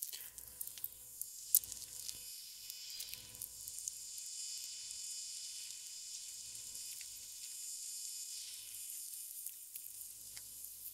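Faint steady high-pitched hiss of outdoor background, with soft clicks and rubbing sounds as raw bacon is stretched and wrapped by hand around a sausage-covered ball, mostly in the first few seconds and again near the end.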